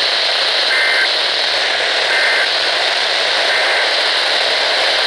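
Three short bursts of EAS end-of-message data tones, a two-tone digital warble, roughly a second and a half apart, the third fainter. They sit under loud, steady radio static hiss, signalling the end of the alert.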